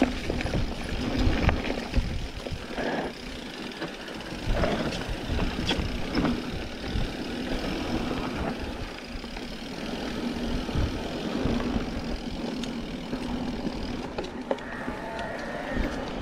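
Mountain bike riding down a dirt trail: knobby tyres crunching over dirt and stones, with irregular knocks and rattles from bumps over a steady hum.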